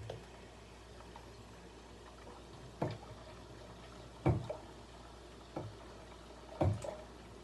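Noisy water filter: a low steady hum with water sounds and four short sudden noises, about a second and a half apart.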